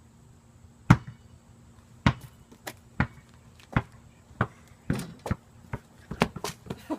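A ball bouncing over and over, the bounces coming quicker and weaker as it goes.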